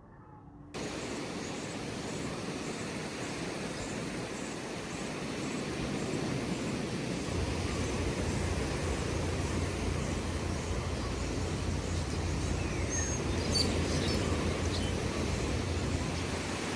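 Steady outdoor noise, an even hiss with a low rumble that grows stronger partway through, with a few faint high chirps near the end.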